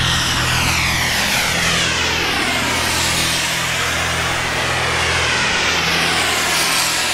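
Four model jet turbines (IQ Hammer 140) on a large scale RC Boeing 747-400, whining steadily as it comes in low on landing approach. The pitch of the whine falls gradually as the plane closes in and passes.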